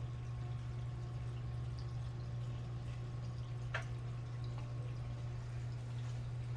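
A steady low hum, with one brief sharp chirp-like sound nearly four seconds in.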